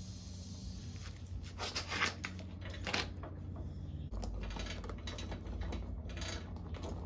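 Scattered clicks, knocks and light clatter of hand work on a minibike wheel and tire, with a busier burst about two seconds in and another near the end, over a steady low hum.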